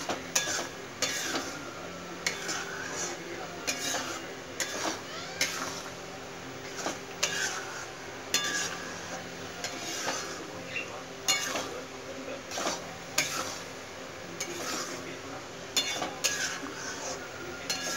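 A metal spatula stirring thick, nearly cooked rice in a metal kadai, scraping and clinking against the pan every second or so in an uneven rhythm.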